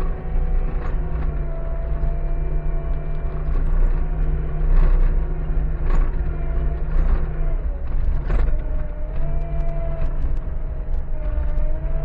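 Skid steer's diesel engine running steadily as the machine drives over rough ground, heard from inside the cab, with a steady whine that shifts a little in pitch and several clanks and rattles at intervals.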